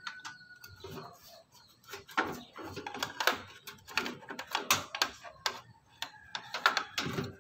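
Irregular small clicks, taps and rattles of plastic connectors, cables and metal being handled inside a desktop PC case while the CPU power cable is fitted to the motherboard. The clicks are sparse at first and come thicker and louder from about two seconds in.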